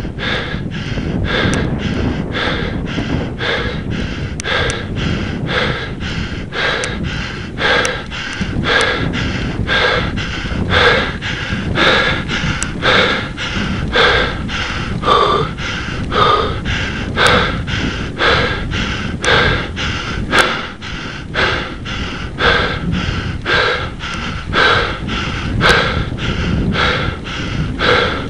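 A cyclist's hard, rhythmic gasping breaths, nearly two a second, over a steady low rumble: he is exhausted, pushing up a very steep climb.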